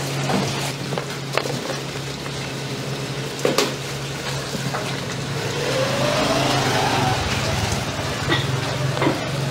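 Food-stall background noise: a steady low hum under a noisy haze, with a few sharp clinks and knocks and a faint rising whine about six seconds in.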